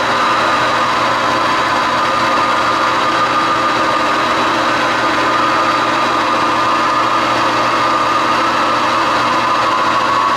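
Metal lathe running steadily, a constant machine hum with several steady whining tones.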